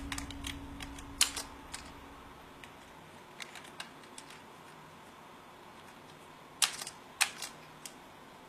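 Computer keyboard keystrokes: sharp single clicks and quick runs of two or three, the loudest pair near the end.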